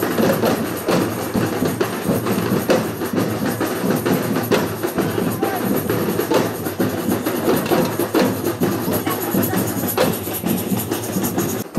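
Batucada samba percussion ensemble playing drums and hand percussion in a dense, steady rhythm.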